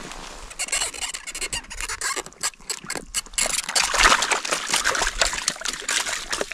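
Water and slush splashing and dripping in an ice-fishing hole as a sonar transducer puck is pulled out, with irregular crackling and clicks.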